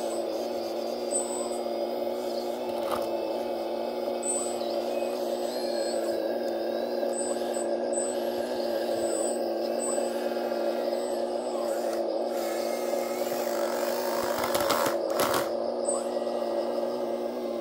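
Radio-controlled model Kobelco hydraulic excavator running its pump motor with a steady whine while the bucket digs. Near the end comes a louder burst of rough scraping as the bucket works the soil.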